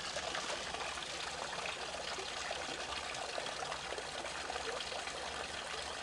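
Steady hiss of flowing water, even and unbroken throughout.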